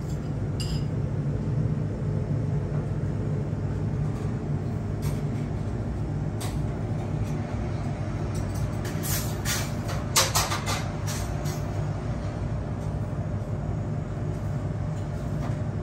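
Steady low mechanical hum, with a quick run of clicks about nine to eleven seconds in.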